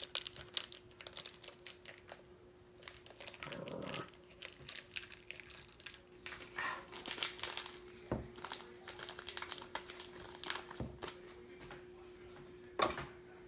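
Fingers peeling the dry, papery skin off a garlic clove: light irregular crinkling and crackling over a faint steady hum, with one sharper click near the end.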